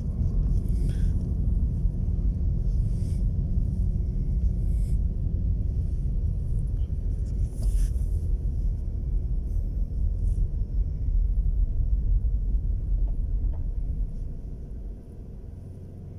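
A loud, unsteady low rumble that eases off near the end.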